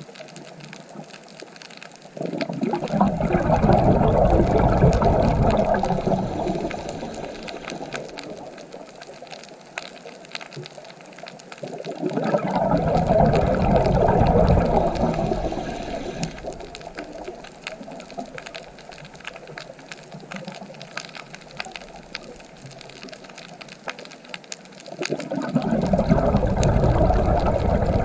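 Ocean waves breaking and washing in, three surges about two seconds in, about twelve seconds in and near the end, each rising quickly and fading away over several seconds.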